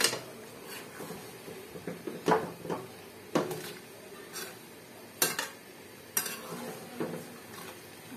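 Flat metal spatula scraping and knocking against a metal cooking pan as a chicken and potato curry is stirred. The knocks come irregularly, about once a second.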